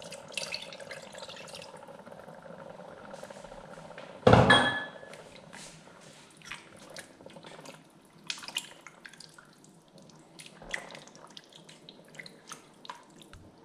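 Apple vinegar poured from a glass measuring jug into a large stainless-steel pot of chopped vegetables, a steady splashing pour. A loud knock about four seconds in, then scattered light scrapes and knocks as a spoon stirs the thick mixture in the pot.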